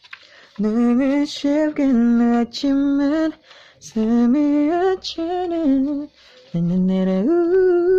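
A single voice singing a melody unaccompanied, in four short phrases of held notes that step up and down in pitch.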